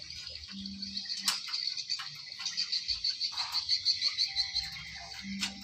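A high, steady chorus of small calling animals, frogs or insects, pulsing about five times a second for a couple of seconds near the middle. A single sharp click sounds about a second in.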